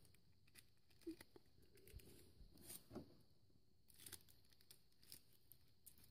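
Faint, scattered crinkles of thin clear plastic wrapping being peeled off a small plastic figure and its parts, a few brief crackles about a second apart.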